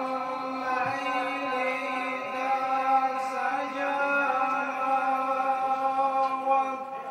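A man's voice chanting in long, drawn-out held notes into a microphone, easing off briefly near the end.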